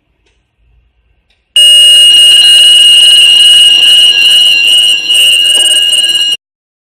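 Horing Lih AHC-871 fire alarm panel's alarm sounding in a test: a very loud, steady, high-pitched electronic tone. It starts about one and a half seconds in and cuts off abruptly about five seconds later.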